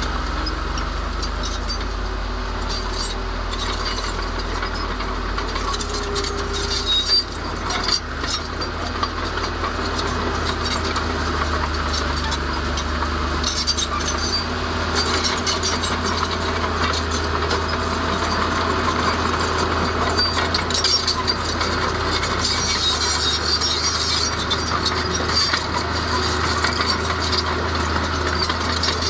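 Heavy diesel earth-moving machinery running steadily with a low hum, with frequent metallic clinks and knocks, a few louder knocks about seven seconds in.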